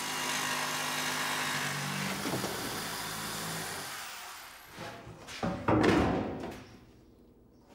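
Electric jigsaw cutting through a fibreglass car-body panel, a steady buzzing saw that runs down and stops about four seconds in. A few knocks and thumps follow as the panel is handled, the loudest about six seconds in.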